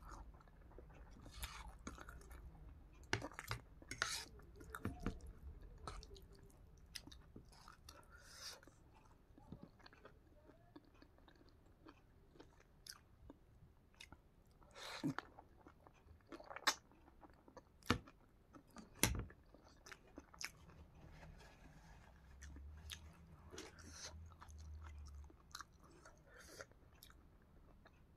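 Faint close-up chewing of mouthfuls of veg chow mein noodles and fried egg, with scattered sharp clicks and smacks.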